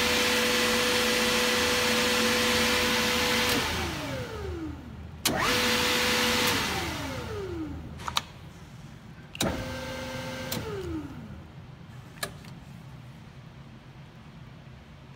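Electric drive motor of a Haagen & Rinau Unimix S KU4 universal mixer, switched on with a click three times. It runs with a steady hum for about three and a half seconds the first time and about a second each of the other times, and each run ends with the pitch falling as the motor winds down. A few single button clicks come near the end.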